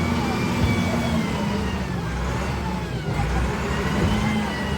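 A heavy engine running steadily under a low hum, with a thin high whine that slowly rises and falls.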